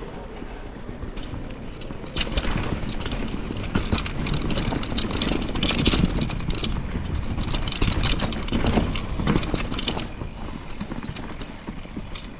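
Mountain bike being ridden down a rough trail: steady tyre and rolling noise with frequent sharp knocks and rattles as the bike goes over bumps and roots.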